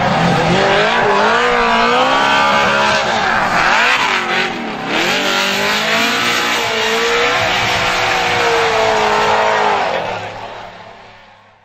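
Drift car engine revving hard, its pitch rising and falling as the throttle is worked, over the hiss of tyres squealing in a slide. A brief dip about four and a half seconds in; the sound fades out near the end.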